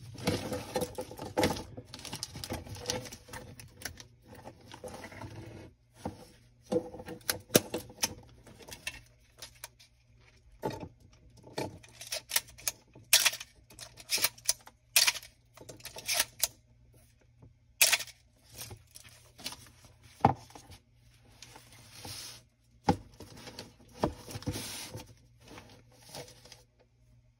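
A Canon AE-1 35 mm film SLR and its strap being handled and turned over in the hands: rustling for the first several seconds, then many scattered sharp clicks and taps.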